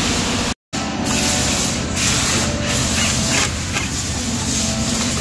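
After a brief dropout, a cordless impact wrench runs on the lug nuts of a billet wheel, a steady mechanical noise with a few short breaks.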